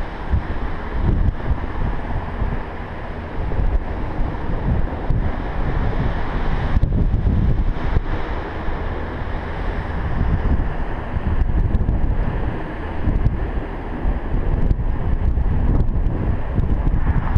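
Gusty wind buffeting the camera microphone, with ocean surf washing against the foot of the cliff underneath.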